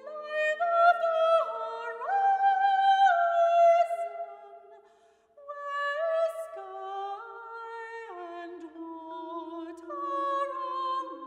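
Classical female voices, soprano and mezzo-soprano, singing long held notes that step up and down, sometimes two lines at once. A brief near-silent pause falls about halfway through.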